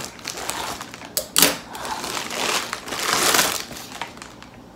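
Scissors cutting open a plastic poly shipping mailer, with the plastic crinkling and rustling in bursts. The loudest bursts come about a second and a half in and again a little past three seconds.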